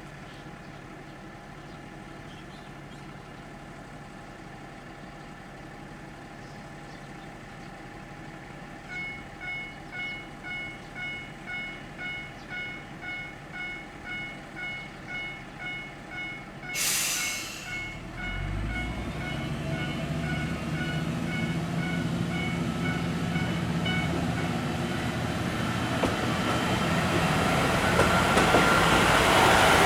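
Diesel railcar idling steadily, then a warning bell striking about twice a second. Just after the middle there is a short sharp hiss of air, and the diesel engine throttles up and grows steadily louder as the railcar gets under way.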